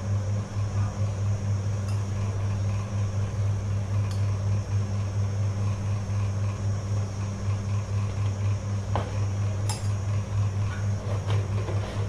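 Electric table fan running with a steady low hum. Two light clinks of glassware come about nine and ten seconds in.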